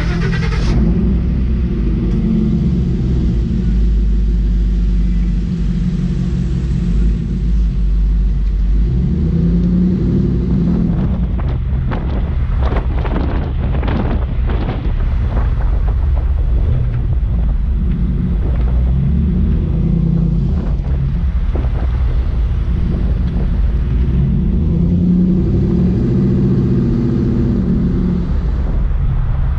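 Heavy wind noise buffeting a GoPro's microphone over a steady low rumble of a moving vehicle, with a stretch of sharper crackling gusts in the middle.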